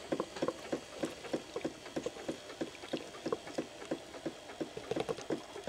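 Lemon halves being twisted by hand on a plastic manual citrus juicer, the fruit grinding against the ribbed reamer cone in quick, rhythmic strokes, about four a second.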